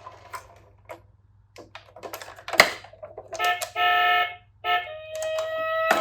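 Small sharp plastic clicks, like a toy fire engine being handled and its button pressed, with one louder click about halfway. Then two short electronic tones from the toy sound unit, and near the end a toy siren starts with a slowly rising wail.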